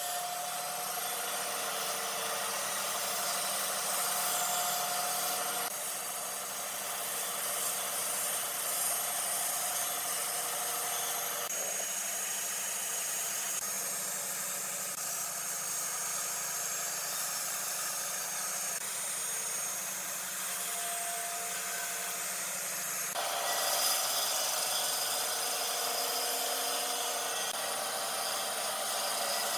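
An electric power tool running steadily as it works wood, a continuous rasping machine sound with a faint motor whine. It changes abruptly several times, as between separate takes.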